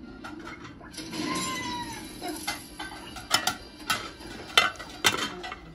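Porcelain plates and cutlery clinking sharply several times as a dinner plate is set down on the table, the loudest clinks near the end. About a second in there is a short squeaky gliding tone.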